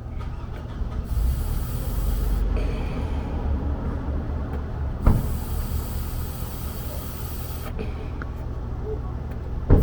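Honda Civic engine idling, a low steady hum, with breathy blowing and rustling noise, most of it between about one and two and a half seconds in. There is a sharp click about five seconds in and another near the end. The owner suspects a vacuum leak at the throttle body.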